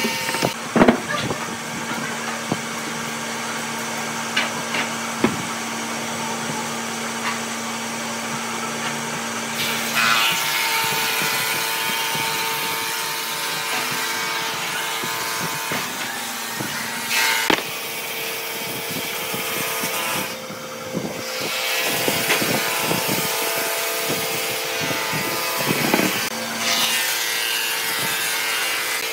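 Wood rubbing and creaking as a wooden block is twisted by hand onto a double-ended screw set in a pine table leg, with a few sharp knocks and a steady hum behind.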